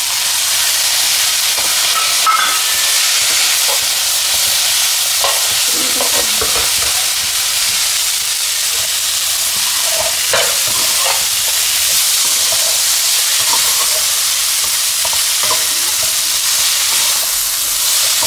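Spiced pasta and vegetables sizzling in a frying pan with a steady hiss while a spatula stirs them, with short scrapes and taps of the spatula against the pan.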